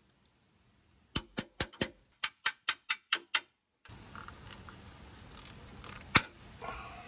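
Socket ratchet clicking, about ten sharp clicks at a steady four or five a second, then it stops. After that a steady background hiss with one loud single click near the end.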